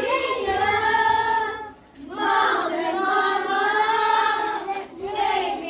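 A group of young children singing together without accompaniment, in long held phrases with short breaks between them.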